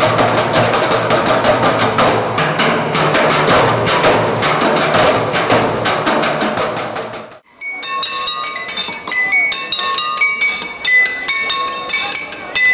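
Fast, dense rhythmic percussion beaten out on recycled workshop objects. About seven seconds in it cuts off abruptly, giving way to separate short ringing pings at several different pitches from struck hard objects.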